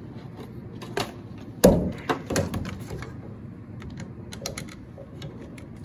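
Plastic clicks and knocks from a white security camera being handled and turned over in the hands. The loudest knock comes about one and a half seconds in, and a run of light clicks follows between four and five seconds in.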